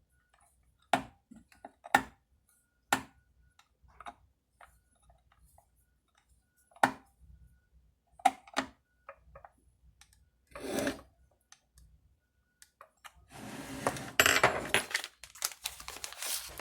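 Sharp knocks and clicks of tools and metal parts being handled and set down, about one a second at first, then a few seconds of packaging crinkling from about 13 seconds in.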